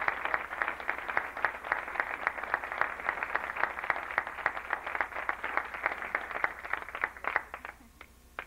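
Audience applauding steadily, then thinning to a few last claps and stopping near the end.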